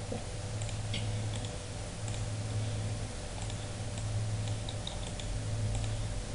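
Scattered faint clicks of a computer mouse and keyboard over a steady low hum.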